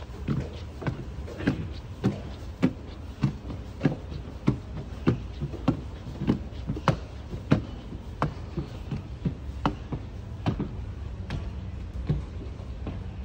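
Footsteps at a steady walking pace, sharp clicks about every half second that grow fainter near the end, over a steady low hum.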